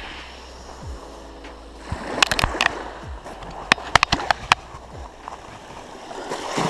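Small waves washing up a sandy beach as a steady hiss. Two clusters of sharp clicks cut in, about two seconds in and again about four seconds in.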